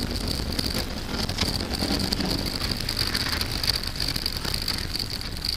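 Subaru Impreza's naturally aspirated flat-four boxer engine running at speed, heard from inside the cabin, mixed with tyre noise and spray on wet tarmac. A steady high-pitched whine runs over it.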